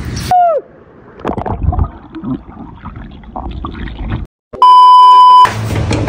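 Edited sound effects: a short falling-pitch whoosh tone, a few seconds of mixed clattering noise, then a loud steady electronic beep lasting under a second about four and a half seconds in, followed by outdoor background noise.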